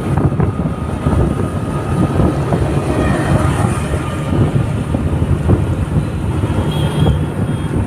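Vehicle travelling along a road: steady road and engine noise with wind buffeting the microphone.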